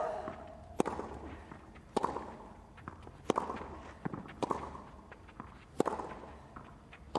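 Tennis rally: racket strikes on the ball at a steady pace, about one every second and a quarter, six in all, each with a short ring after it.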